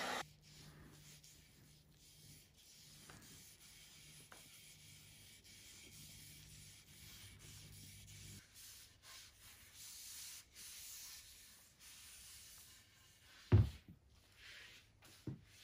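A heat gun's blowing cuts off at the start, followed by faint rubbing of a rag wiping over an oiled hickory axe handle. A single loud thump comes about thirteen and a half seconds in.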